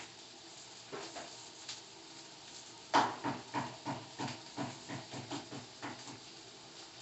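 A quick run of about ten knocks, roughly three a second, starting about three seconds in with the loudest one and fading over the next few seconds.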